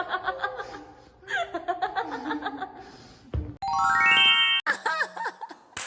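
Hearty laughter in quick repeated ha-ha pulses, then a short thump and an edited-in sound effect: a quick run of bell-like chime notes climbing in pitch. More laughing voice follows.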